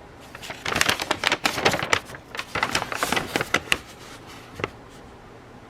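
Paper crinkling and rustling as a printed sheet is handled and straightened, a dense run of crackles that dies away after about three seconds, with one last click a little later.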